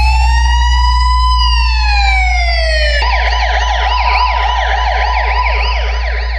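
Police siren sample in a DJ sound-check track: one long wail that rises and then falls, switching about three seconds in to a fast, repeating yelp. A steady deep bass hum runs underneath.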